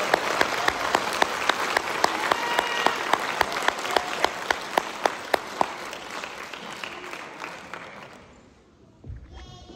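Audience applause in a theatre hall, with many individual claps, dying away steadily over about eight seconds. A low thump follows about a second before the end.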